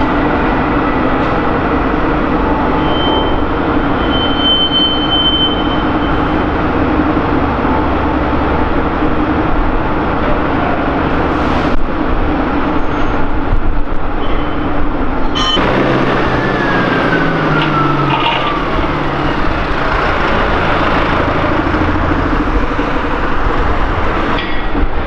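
Steady engine and rail-yard noise, with a few steady tones over a constant rumble. About fifteen seconds in the sound changes, and a pitch slides slowly downward over a few seconds.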